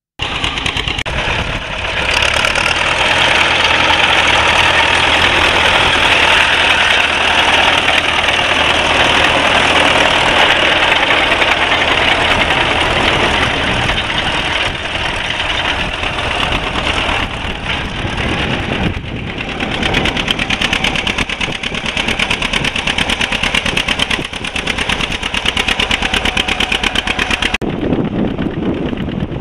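Antique farm tractor engines running steadily under load as they pull plows and tillage implements through soil. The sound starts abruptly and changes character a few times, about 2, 19 and 28 seconds in.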